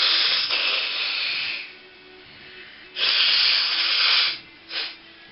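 A person blowing their nose forcefully: two long, noisy blows of about a second and a half each, then a brief third blow near the end.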